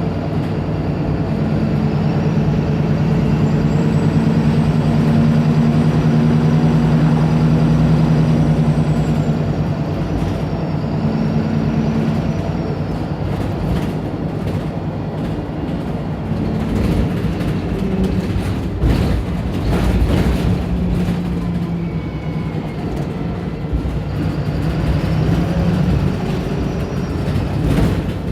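Diesel engine of a Wright Pulsar single-deck bus working hard under acceleration, a loud steady drone that eases off about twelve seconds in. Rattles and knocks follow midway, and the engine builds again near the end.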